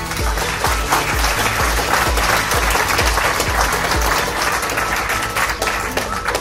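Background music with a steady bass beat, under a dense crackling noise like applause or crumpling paper that swells through the middle and fades near the end.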